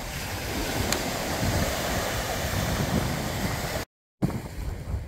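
Wind buffeting the microphone over small waves washing onto a sandy beach, a steady rushing noise with low rumble. The sound drops out for a moment about four seconds in, then the surf and wind carry on a little quieter.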